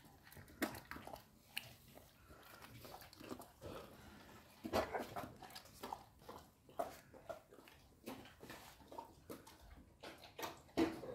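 Polish Tatra Sheepdog chewing a dried beef ear: irregular crunching and gnawing clicks, louder around five seconds in and again near the end.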